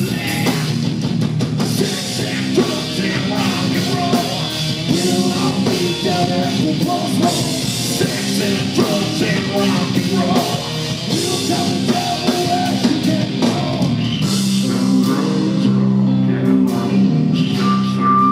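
Heavy rock band playing live at full volume: distorted guitars and bass over a drum kit with cymbals, and a male singer's vocals. From about three-quarters of the way in, the guitars and bass hold long low chords.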